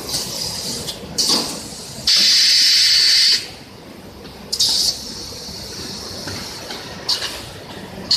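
Compressed air hissing from a pneumatic machine's valves and cylinders as it cycles. There is one long blast of just over a second about two seconds in, with short sharp puffs of exhaust before and after it.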